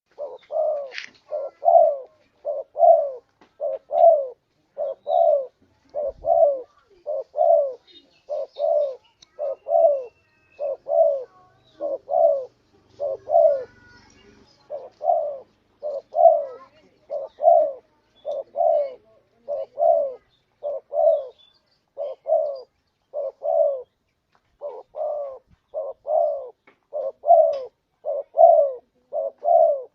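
Spotted dove cooing: a long run of short, rounded coo notes repeated a little over once a second, with a couple of brief pauses.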